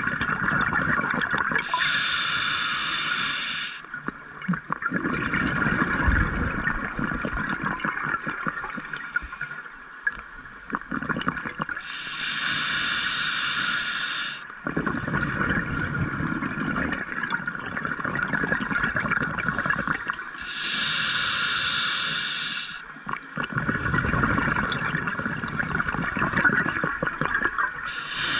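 Scuba diver breathing through a regulator underwater. Three hissing inhales, each about two seconds long and roughly nine seconds apart, alternate with long, low bubbling exhales.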